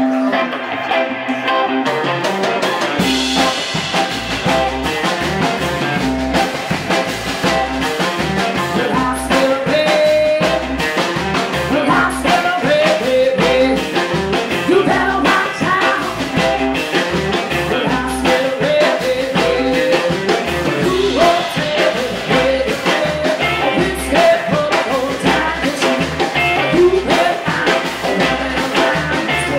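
Live rock and roll band playing: electric guitar, upright bass and drum kit, with a woman singing lead. The low bass pulse comes in about three seconds in.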